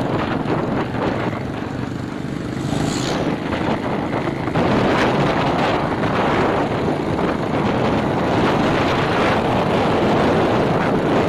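Small motorcycle engine running along at road speed, with wind rushing on the microphone as the recording moves alongside.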